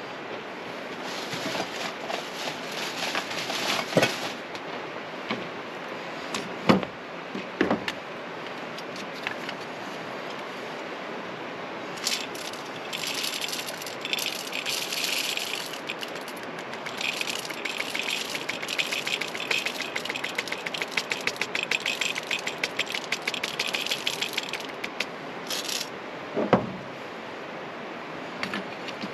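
Coffee beans rattling as they are poured from a metal tin into a stainless steel hand coffee grinder, in several stretches of clatter, with a few sharp clinks and knocks of metal being handled.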